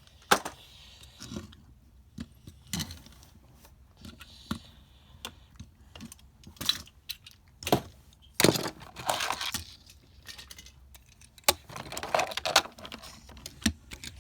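Irregular sharp clicks, knocks and light rattles, as of things being handled, with longer rustling scrapes about eight and a half and twelve seconds in.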